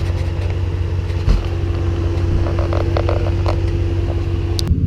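Off-road 4x4 vehicle engine running steadily, a low drone with a steady whine above it. One thump about a second in and a few light knocks in the middle; the sound changes abruptly just before the end.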